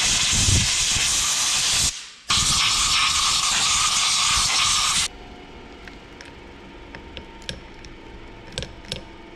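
Compressed-air spray gun hissing in two long blasts as it washes out a tractor brake housing, stopping briefly about two seconds in and cutting off about five seconds in. A few light metal clicks follow.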